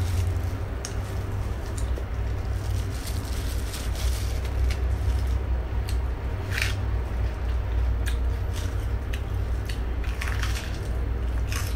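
Crisp lettuce leaf rustling and crunching as it is handled and bitten, with the crinkle of a thin plastic food-handling glove. The sharpest crackles come about two-thirds of the way in and again near the end, over a steady low rumble.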